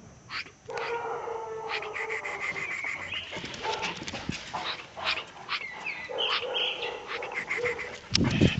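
Young Caucasian Shepherd dog whining in drawn-out calls, first about a second in and again in the second half, with sharp clicks in between. A loud thump comes near the end.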